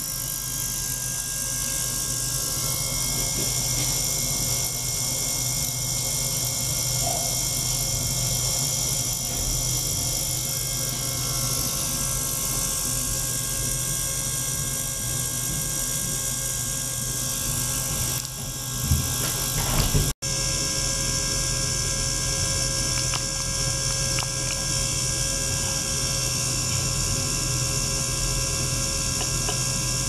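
An ultrasonic cleaning tank running with a small pump circulating its water: a steady mechanical hum with a high hiss. A few knocks and a momentary dropout come about two-thirds of the way through.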